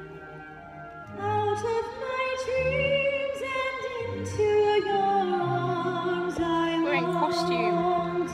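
A solo voice singing a slow, held melody over low accompanying chords, starting about a second in.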